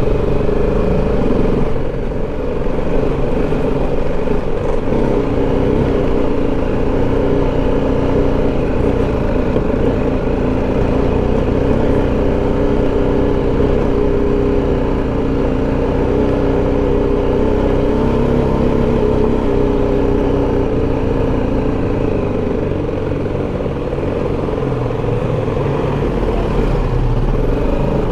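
BMW G 310 GS's single-cylinder engine running at fairly steady revs while the motorcycle is ridden along a rough village road, heard from the rider's seat.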